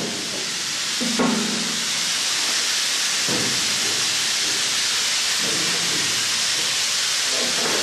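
A steady, even hiss, with a few brief muffled voices in it.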